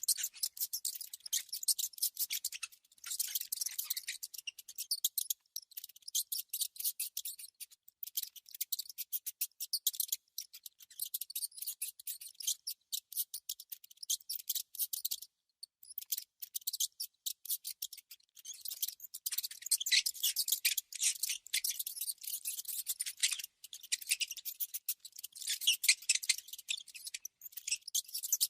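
Mouse sound effect: rapid, irregular, high-pitched scratching and clicking, like small claws or teeth working at something. It pauses briefly about halfway through and again a couple of seconds later.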